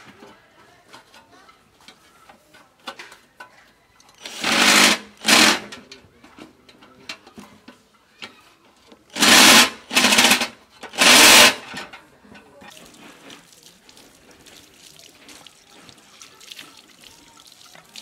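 Cordless drill running against a microwave's sheet-metal chassis in five short bursts: two about four to five seconds in, then three more about nine to twelve seconds in.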